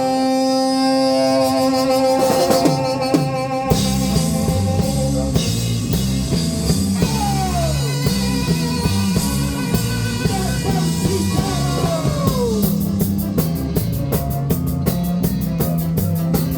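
A live ska band playing: a held chord at first, then about four seconds in the bass and drums come in with a driving beat, with sliding notes over it.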